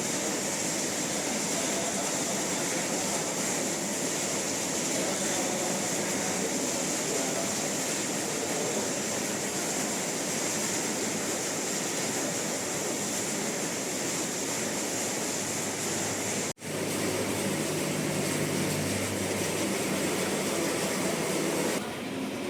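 Steady rushing noise with a strong high hiss and no clear rhythm, cut off for an instant about sixteen and a half seconds in, then running on.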